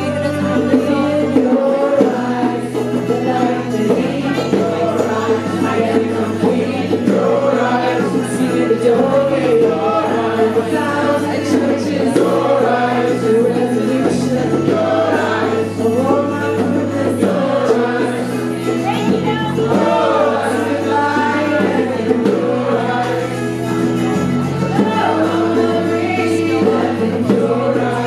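A live acoustic band playing a song: voices singing over strummed acoustic guitar, with a low bass line stepping between notes every second or two.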